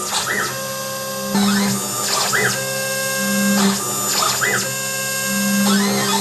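Quick CNC K6100 router running an engraving program in acrylic. The spindle gives a steady whine, while the stepper motors hum on and off and chirp up and down in pitch about once a second as the axes start and stop between engraving moves.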